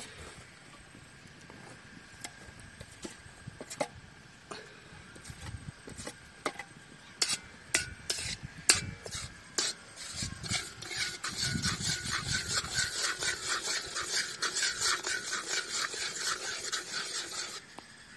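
A metal fork scraping grated coconut into boiling jaggery syrup in an iron kadai and stirring it, the fork clicking against the pan and plate. First come scattered taps and scrapes, then from about ten seconds in a fast, steady run of stirring strokes, about five a second, which stops shortly before the end.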